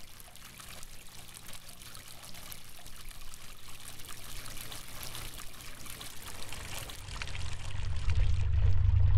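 Water pouring and trickling, with many small splashes. Near the end a loud low rumble swells up and the water sound turns muffled as its high end fades away.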